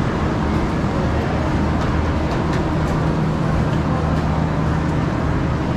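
Steady street traffic noise, with a low engine hum that holds one steady pitch through the second half and a few faint clicks.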